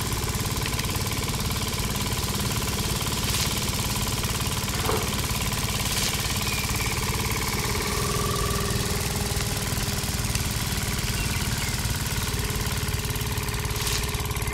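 Small motor running steadily, spinning the spiked threshing drum of a miniature DIY thresher as rice stalks are fed in.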